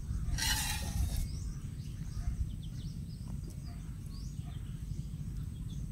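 Outdoor ambience: small birds chirping many times over a steady low rumble of background noise. A brief rustling hiss about half a second in.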